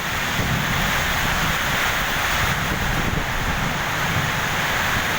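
Heavy storm rain with strong wind: a steady loud hiss of rain, with wind gusting and rumbling on the microphone.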